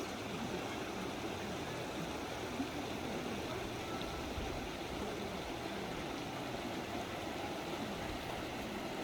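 Valley stream water running steadily.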